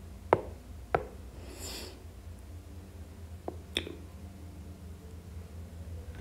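A few sharp, separate taps of a stylus on a tablet screen as a pen colour is picked and a line drawn, over a steady low hum.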